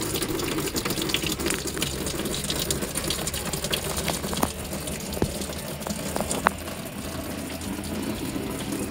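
Engine coolant running out in a steady stream from the disconnected lower radiator hose of a Jeep Wrangler JK as the cooling system drains. A few light clicks about halfway through.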